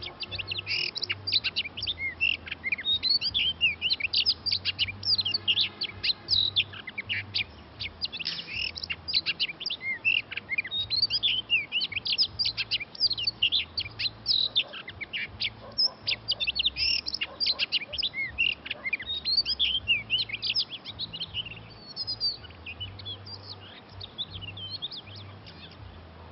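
Oriental magpie-robins singing: a rapid, varied stream of whistled notes, often overlapping, that thins out in the last few seconds.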